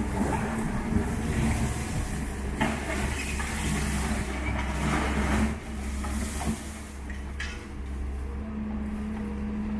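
Doosan DX140W wheeled excavator's diesel engine running steadily while its bucket breaks up and drags demolition rubble, with crunching and clattering debris. The debris noise is heaviest a few seconds in.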